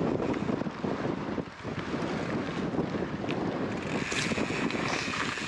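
Wind rushing and buffeting against the camera microphone while riding a mountain bike into a strong wind, a steady, gusting noise.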